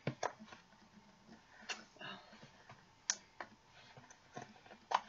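Handling and opening an unboxing subscription box: a few sharp, scattered clicks and taps against a quiet room, the loudest about three seconds in and near the end.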